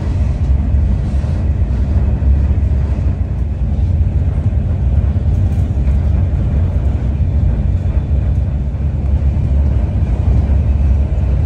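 Loud, steady low rumble of a moving vehicle, with no break or change.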